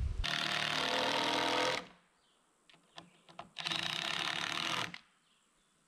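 A power tool running in two short bursts of rapid mechanical rattling, each starting and stopping abruptly, with near silence between them.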